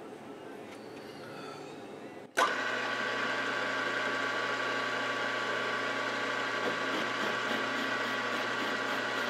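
Milling machine running with a boring head in the spindle: it comes on abruptly a little over two seconds in, then runs as a steady hum and whine.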